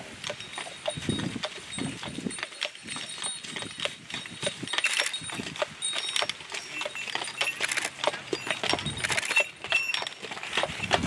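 Shod draft horses walking on a paved towpath, their hooves clip-clopping in an uneven run of knocks while they tow a barge, with short metallic jingles mixed in.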